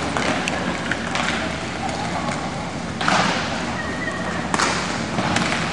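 Inline hockey play: a steady wash of skating and rink noise, broken by sharp clacks of sticks and puck, the loudest about three seconds in.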